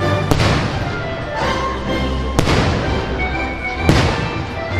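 Fireworks show music playing, with firework shots banging three times: just after the start, about halfway through and near the end.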